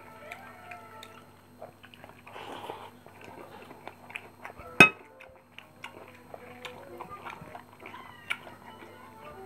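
Eating by hand: fingers working rice and fried fish on a plate, and chewing. A single sharp knock comes about five seconds in and is the loudest sound. Faint, high, gliding cries sound in the background throughout.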